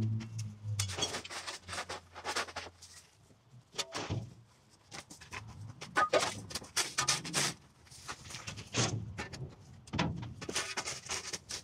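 Irregular knocks, scrapes and rustles coming in clusters, with a low steady hum under the first few seconds.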